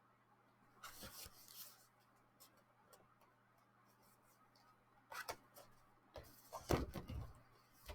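Desk calendar pages being handled and turned: a short paper rustle about a second in, a few light ticks, then louder rustling and handling in the last few seconds as pages that stick together are worked apart.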